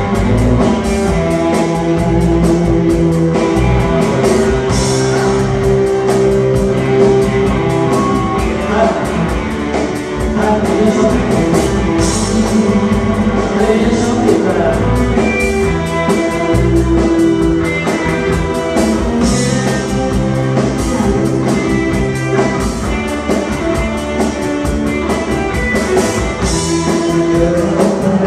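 Live band playing an instrumental break in a Lao lamvong dance song, with a steady beat.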